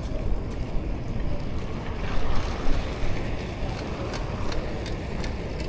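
Wind buffeting an action camera's built-in microphone: a steady, uneven low rumble, with a few faint clicks.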